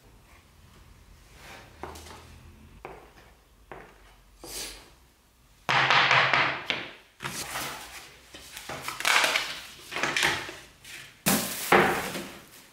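Hand-work sounds of veneering: a plastic glue spreader scraping faintly over the panel, then from about six seconds in loud, irregular rustling and crinkling with a few knocks as the veneer and plastic sheeting are handled.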